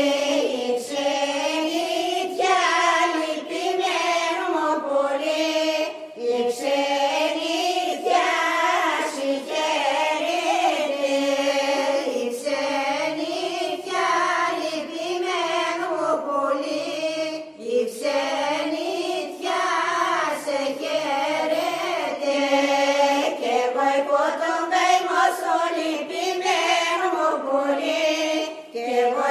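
Greek Orthodox church chanting: long, winding sung phrases that rise and fall, with brief breaks between them.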